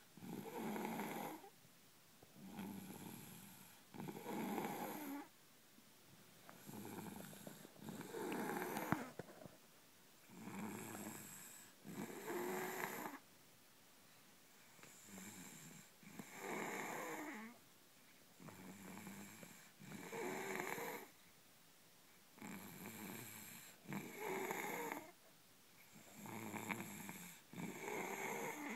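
Steady snoring, a pair of snores in each breathing cycle, repeating about every four seconds.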